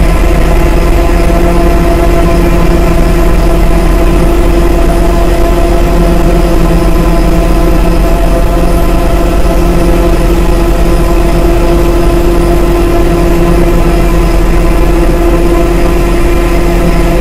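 Dark ambient synthesizer drone from a Maneco Labs Grone drone module processed through a Mutable Instruments Clouds granular processor. It is a loud, steady, dense mass of held tones over a deep low rumble, with no rhythm or breaks.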